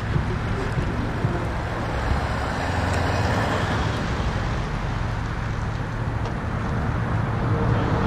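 A vehicle engine running steadily, a low hum under a wide haze of road noise, with a few faint clicks.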